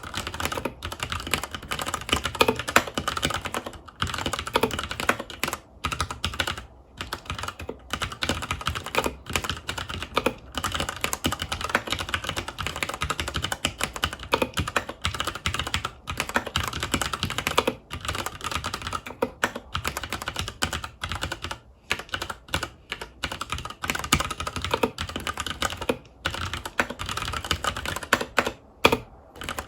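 Continuous fast typing on a FILCO Majestouch 2 tenkeyless mechanical keyboard with Cherry MX Brown switches: a dense run of key clacks with a few short pauses.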